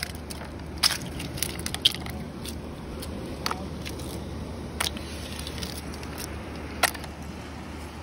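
Mussel shells being handled and sorted, clicking and cracking against one another in scattered sharp clicks, the loudest about one, two and seven seconds in.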